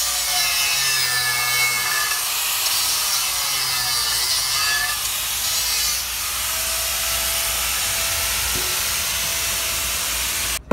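Small corded angle grinder with its disc pressed on a wheel rim, grinding down the weld that closes a crack in the rim. The whine wavers in pitch as the disc is worked along the seam, and the sound cuts off suddenly near the end.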